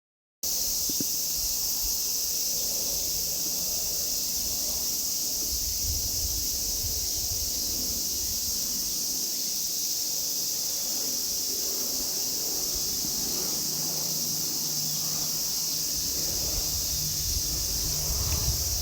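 Cicadas droning steadily in a high, even chorus. Under it a faint low hum builds from about two-thirds of the way in: a distant aircraft approaching.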